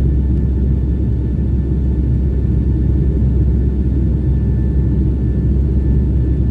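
Airliner cabin noise from the jet engines and airflow: a steady low rumble with a faint, even whine above it, unchanging throughout.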